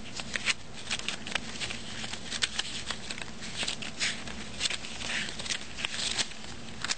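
Pages of a paper instruction booklet being flipped and handled: a string of irregular paper flicks and rustles.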